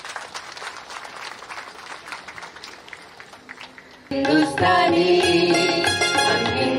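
Scattered applause from a seated audience for about four seconds. Then, abruptly and much louder, live group singing starts with tabla, harmonium and keyboard.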